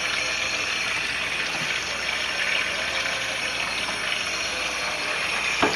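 Tap water running steadily from a faucet, a constant even rush.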